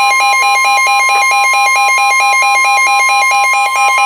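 A weather radio's alert alarm sounding: a fast, shrill warble stepping between two pitches about five times a second. Under it runs the steady 1050 Hz warning alarm tone of the NOAA Weather Radio broadcast, which signals that a warning is being issued.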